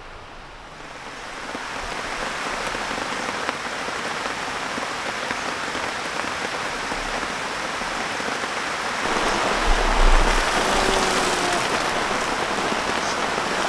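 Heavy rain falling steadily. It swells over the first two seconds and gets louder again about nine seconds in.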